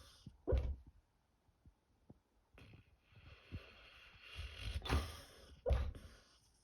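A sleeping dog snoring: a short snort about half a second in, then a long noisy in-breath from about three to five seconds in that ends in another snort near the six-second mark.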